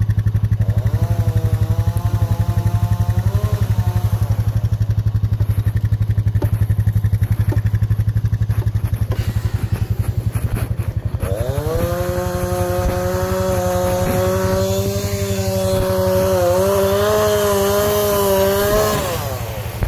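Small engines running: one idles with a steady low pulse throughout, while an engine revs up and holds high, briefly near the start and again for about seven seconds from about halfway, dropping off just before the end.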